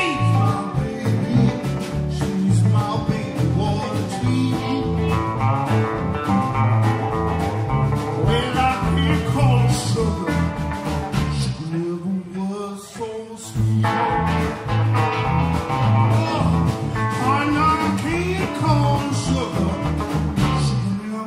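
Live blues band playing through a PA: electric guitars over electric bass and drums, with curving, bent notes in the lead line. The bass and drums drop out briefly just past the middle before the groove comes back in.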